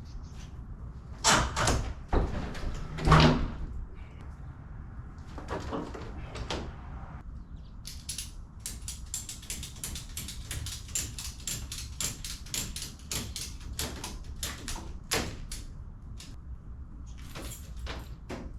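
Garage door hardware being worked on: two loud metal bangs in the first few seconds, a few more knocks, then a long run of quick clicks, several a second.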